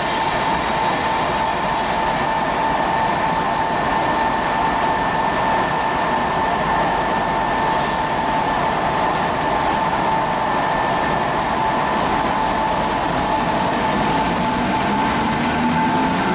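ČD class 460 'Tornádo' electric multiple unit standing at the platform, its onboard machinery giving a loud, steady whine over a constant running noise. In the last couple of seconds a low hum rises in pitch as the unit starts to pull away.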